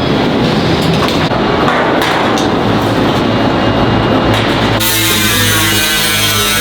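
Steady abrasive grinding or sanding noise from work on a steel refrigerator-showcase frame, over background music. About five seconds in, the sound changes to a brighter rasping with a wavering whine.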